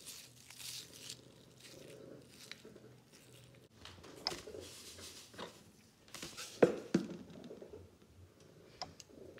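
Faint handling sounds from mixing slime in a glass bowl: aluminium foil crinkling in the first second, then scattered small clicks, and one sharp knock about two-thirds of the way through.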